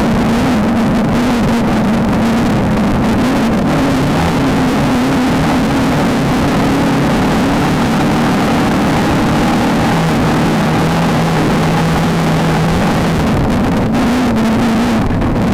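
Beetle-based desert off-road race car's engine running hard over a constant noisy din. The engine note holds steady, drops lower for about three seconds past the middle, then climbs back near the end.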